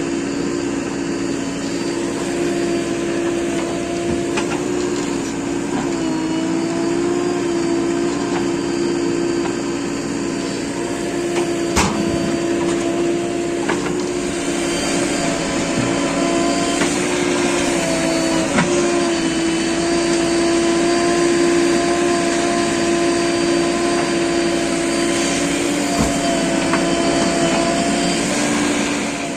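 JCB 3DX backhoe loader's diesel engine running steadily under working load, its pitch dipping slightly now and then, with a few sharp knocks.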